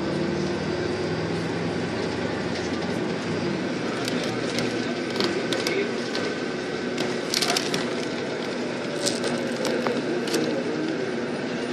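Inside a moving vehicle: engine and road noise while driving, with scattered sharp clicks and rattles between about four and ten seconds in.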